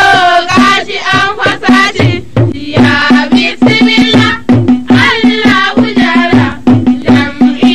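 Opening theme music of a news bulletin: a singing voice over a steady, fast drum beat in a folk style.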